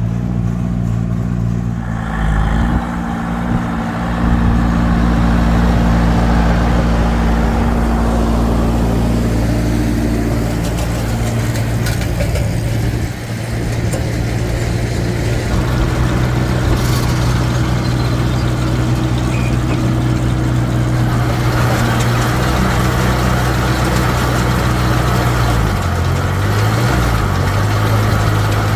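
Tractor engine running steadily while pulling a square hay baler, with mechanical clatter over it. The engine speed wavers briefly near the end.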